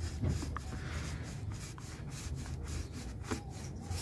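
A cloth rubbing back and forth inside the idle air control (IAC) valve bore of a Volkswagen Pointer 1.8's throttle body, wiping out built-up dirt, in quick even strokes about three to four a second.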